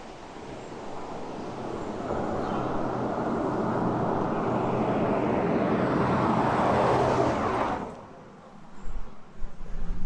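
A car passing on the road, its engine hum and tyre noise growing steadily louder over several seconds, then cut off abruptly. Low thumps and rumbles follow near the end.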